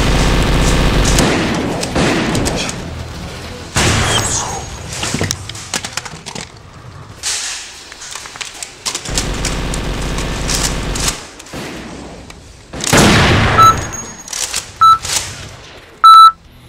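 Video-game gunfire sound effects laid over Nerf blaster play: two long bursts of rapid automatic fire, with single heavy shots and booms between them. Near the end come three short electronic beeps, the last one longest and loudest.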